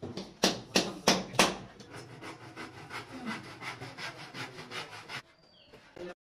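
Four sharp hammer blows on a wooden moulding strip being pinned to a wall, then a hand saw cutting wood with steady strokes, about four a second.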